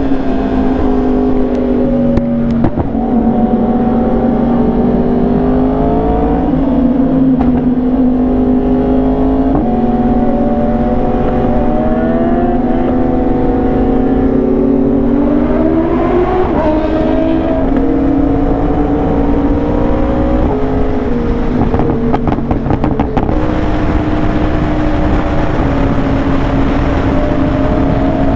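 Yamaha R1's inline-four engine under way at freeway speed, its note repeatedly climbing and dropping back as the throttle is worked, over a steady rush of wind.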